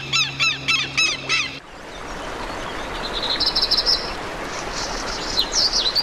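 Birds calling in quick, evenly repeated chirps over a low steady hum. About a second and a half in, this gives way to a steady rushing noise with high bird calls and short gliding cries in it, once around the middle and again near the end.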